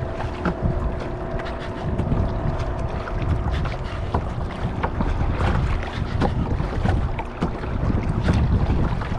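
Wind buffeting the microphone with a steady low rumble, while choppy water slaps and splashes against the kayak's bow in many short irregular hits.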